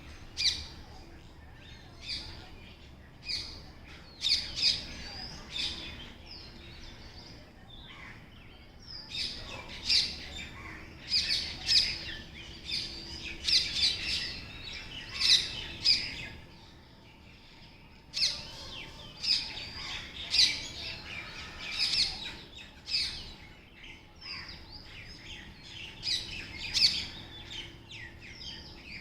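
Parrots chirping and squawking: many short, sharp, high calls coming in busy clusters, with a brief lull a little past halfway.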